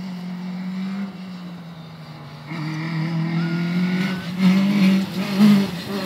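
Rally car engine running hard as the car comes along the stage. It gets louder about two and a half seconds in, its pitch climbing through a gear, then swings sharply up and down with bursts of revs near the end.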